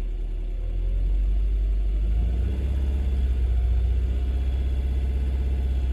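Subaru Forester SH5's EJ20 flat-four engine running at a steady idle, heard from the driver's seat, with a rapid, light clicking over the low rumble. This is the カリカリ noise the owner is chasing after an engine mount replacement, and suspects of being tappet noise or injector ticking.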